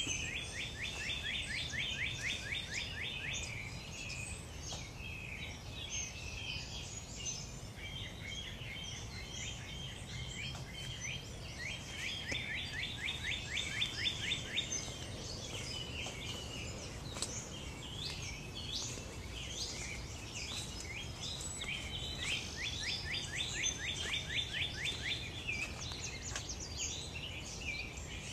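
Dawn chorus of many birds chirping and twittering. A fast trill of quickly repeated notes, each lasting about three seconds, comes three times.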